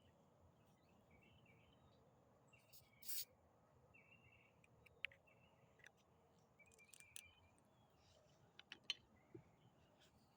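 Near-quiet open air with faint, scattered bird chirps. There is a brief rustle about three seconds in and a few small clicks near the end.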